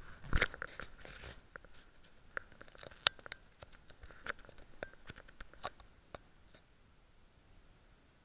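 Handling noise from a small camera being moved and set down: a thump about half a second in, then scattered light clicks and taps that die away after about six seconds, leaving near silence.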